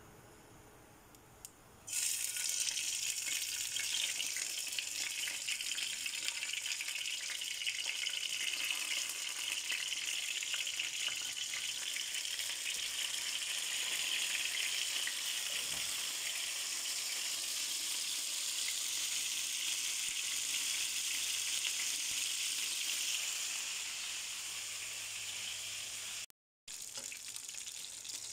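Marinated chicken pieces sizzling as they fry in hot oil in a frying pan. The sizzle starts suddenly about two seconds in and holds steady, then cuts out briefly near the end and resumes.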